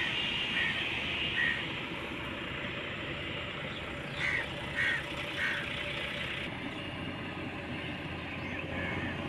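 Steady engine noise of construction machinery at work, with a few short, faint chirps in the first half.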